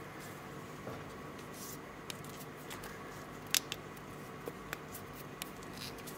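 Faint clicks and rubbing as the Seiko 5 SRPD65's leather-and-silicone strap is worked through its metal pin buckle and fastened on the wrist, with half a dozen short clicks, the sharpest about three and a half seconds in.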